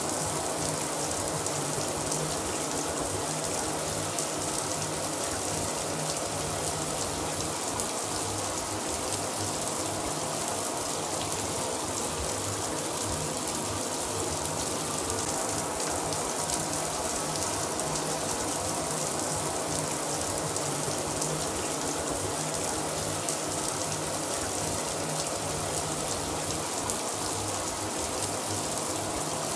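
A shower running steadily, its spray falling in an even, unbroken splashing hiss.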